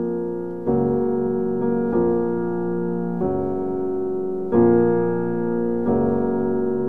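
Background music: slow, sustained piano chords, changing about every second and a quarter.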